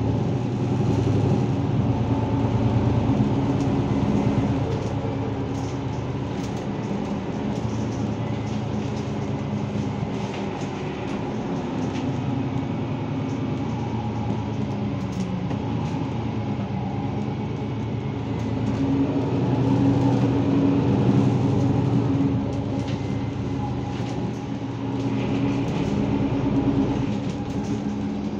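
Interior noise of a Mercedes-Benz Citaro G C2 articulated city bus on the move: the engine's low drone and road noise run steadily, swelling louder near the start and again about two-thirds of the way through as the bus pulls harder.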